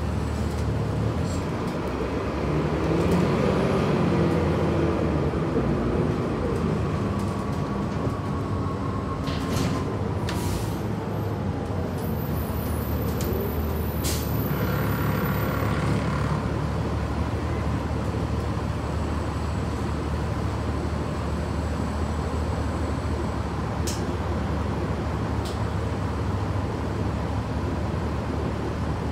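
Steady engine and road noise heard from inside a city transit bus. A whine glides in pitch during the first several seconds, and a few short hisses and clicks come through later.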